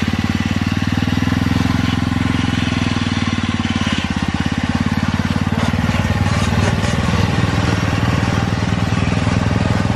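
Off-road Craftsman riding mower's small engine running steadily as the mower crawls up rocky ground.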